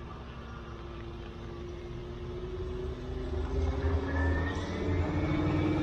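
A motor vehicle's engine drawing nearer on the mountain road, growing steadily louder from about halfway through, its pitch rising slowly.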